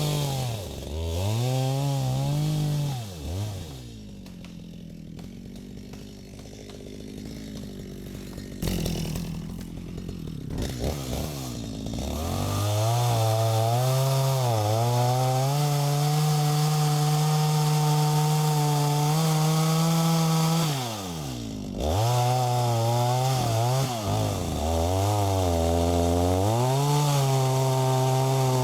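Stihl MS250 two-stroke chainsaw blipped up and down, dropping to a quieter idle for several seconds, then held at full throttle with small dips in pitch as it cuts wood. It drops off briefly about three-quarters of the way through, then revs up and runs high again.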